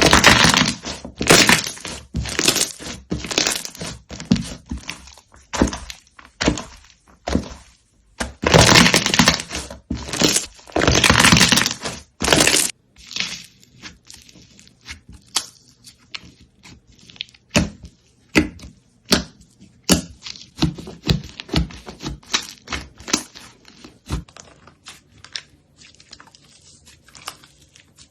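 Slime being handled close to the microphone: a quick run of short, sharp clicks and pops, with two longer stretches of dense crackling around the middle, then softer and sparser clicks near the end.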